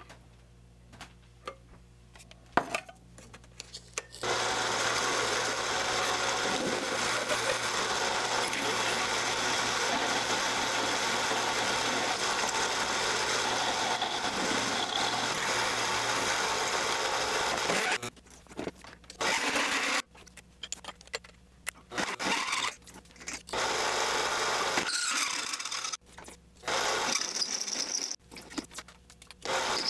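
Mini metal lathe running with a twist drill from the tailstock chuck boring into a spinning heavy mild steel workpiece, making a steady drilling noise. It starts about four seconds in after a quiet stretch with a few light clicks, and in the second half it breaks off and returns several times at abrupt cuts.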